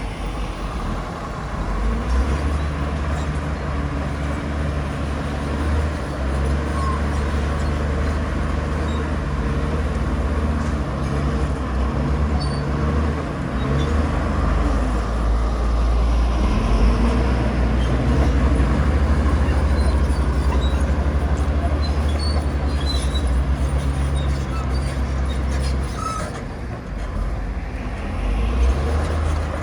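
Diesel engine of heavy earthmoving machinery running steadily: a continuous low drone that swells and eases a little, with a few faint clinks late on.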